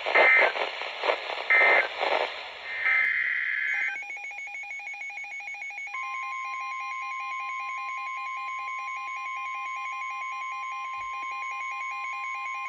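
NOAA Weather Radio Emergency Alert System tones. Three short harsh digital data bursts, the SAME end-of-message code closing the warning. From about four seconds in, a receiver's electronic alarm beeps in a rapid repeating pattern, and about six seconds in the steady 1050 Hz weather-radio warning alarm tone starts and holds, announcing the next warning.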